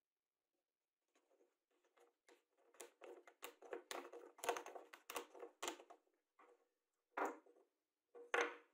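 A steel threaded insert being screwed by hand into a hardwood block: a run of short, irregular scraping sounds as its threads cut into the wood. Near the end come two louder scuffs, about a second apart, as the wooden block is moved about on the wooden bench.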